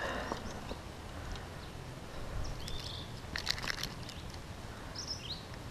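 Faint outdoor ambience with a few short whistled bird calls and a quick cluster of small clicks about three and a half seconds in, as the hooks of a crankbait are worked out of a small largemouth bass's mouth.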